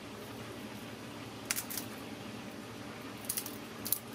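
Quiet handling sounds: three short, soft clicks and rustles, one about a second and a half in and two near the end, as a wooden skewer is worked through the open end of a sausage-stuffed duck neck, over a low steady hum.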